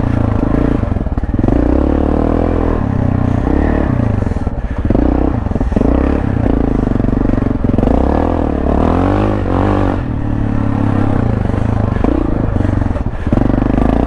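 Yamaha XT660R's 660 cc single-cylinder four-stroke engine through an Akrapovič titanium exhaust, riding a dirt trail: the engine note climbs and drops several times as the throttle is opened and closed, most strongly about eight to ten seconds in. Short knocks and clatter from the bike over the rough ground run under it.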